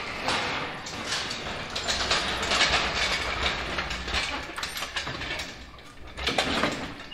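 Irregular metal clattering and scraping over a low rumble, with a louder burst near the end.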